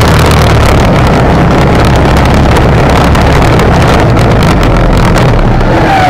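ATV engine running loud and steady as the ATV pushes snow and slush with its front plow blade, with the blade's scraping mixed in.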